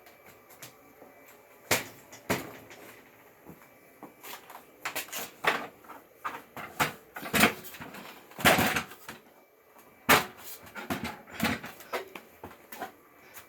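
A ladder being moved into place and climbed: irregular knocks, clatters and scraping, the loudest rattle about eight and a half seconds in and a sharp knock about ten seconds in.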